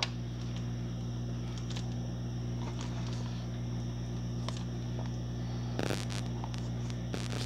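Faint clicks and scrapes of a meat marinade injector being worked into a raw turkey in a foil roasting pan, with a louder scrape about six seconds in, over a steady low hum.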